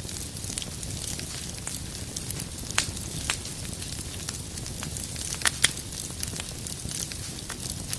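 Wood fire burning with a steady hiss and low rumble, broken by scattered sharp crackles and pops from the burning logs, two of the loudest close together about five and a half seconds in.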